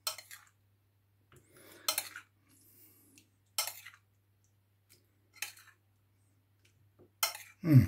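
Metal spoon clinking and scraping against ceramic bowls while food is spooned from one bowl into another: about five clinks, one every couple of seconds, with softer scrapes between.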